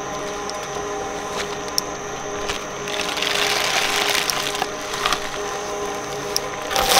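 Shredder motor running with a steady hum and scattered clicks, then from about three seconds in, crunching and cracking as a toy is fed in and broken up by the cutters.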